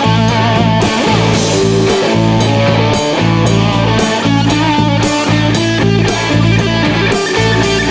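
Live rock band playing an instrumental passage: a Les Paul-style electric guitar picks a melody with wavering held notes over drum kit and low bass notes.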